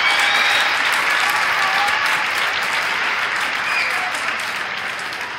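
Large crowd applauding, with scattered cheers and shouts, slowly dying down toward the end.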